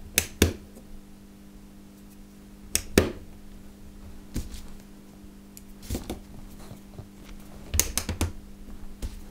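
Cylindrical neodymium magnets clicking and knocking as they are set into the plastic holders of a magnetic track. The sharp clicks come irregularly, a second or two apart, with a quick cluster near the end.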